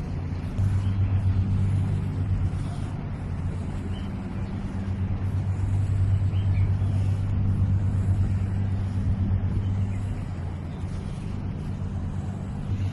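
Steady low engine drone, a deep hum with a second tone above it, swelling and easing slightly in loudness over a light background hiss.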